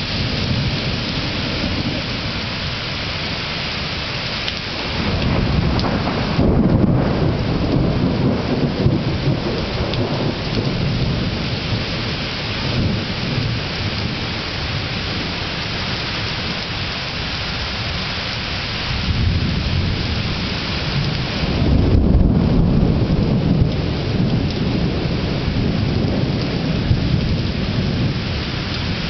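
Thunderstorm: steady heavy rain with two long rolls of thunder, the first swelling about five seconds in, the second and loudest about twenty seconds in.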